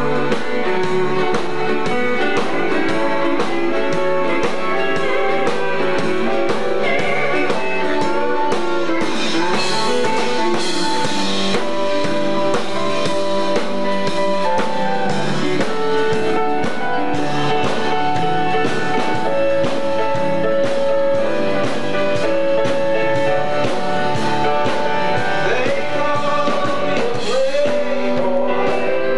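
Live country band playing, with electric bass, guitar and drums, at a steady loud level.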